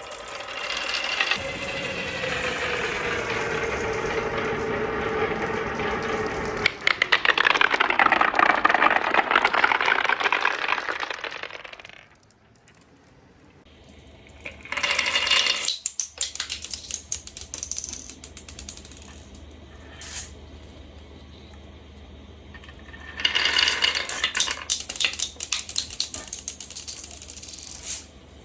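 Marbles running through a marble run. First comes a long ringing rolling sound, its pitch drifting down and then swooping down and back up, before it stops about twelve seconds in. Two bursts of rapid clattering follow, one in the middle and one near the end.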